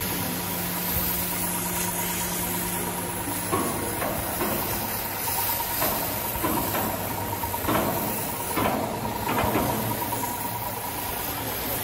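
Machinery running steadily: a loud, even hiss with a constant high whine and a low hum that drops out about three and a half seconds in.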